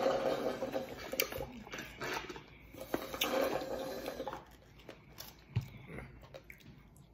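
Thick smoothie being slurped through a straw from a foam cup for about four seconds, crackly and wet. After that, only quieter scattered clicks.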